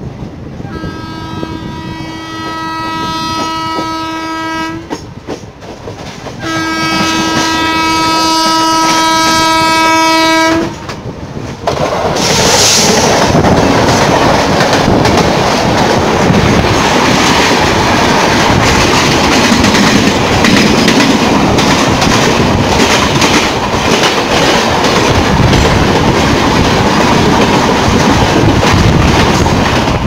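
WAP-7 electric locomotive's horn sounded in two long chord blasts of about four seconds each. Then the Rajdhani Express coaches rush past close by at speed, a loud steady rumble with rapid wheel clatter over the rail joints.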